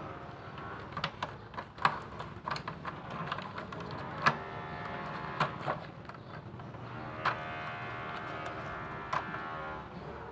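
Sharp clicks and knocks from handling an air-conditioner indoor unit's wiring, plastic connectors and casing with a screwdriver, about eight of them spread out, the loudest about two and four seconds in, over a steady droning hum.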